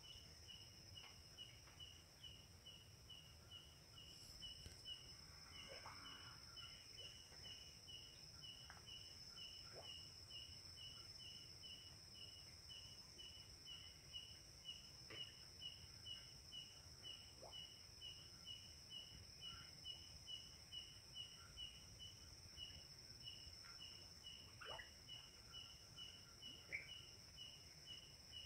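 Night insects, faint: a cricket chirping evenly a little over twice a second over a steady high-pitched insect drone, with a few faint short calls now and then.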